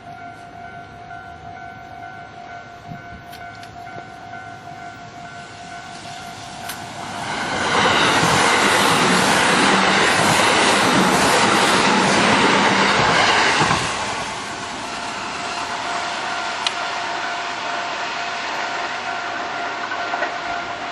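Japanese railroad crossing warning bell ringing steadily. An electric train passes close by from about seven seconds in to about fourteen seconds in, the loudest part, and the bell keeps ringing after it has gone. The bell stays at full volume with the barriers down, because it is not turned down at this busy road crossing.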